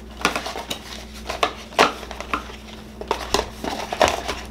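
Irregular clicks, knocks and light plastic rattles of a ratcheting screwdriver set being handled and fitted into its plastic case, about two a second.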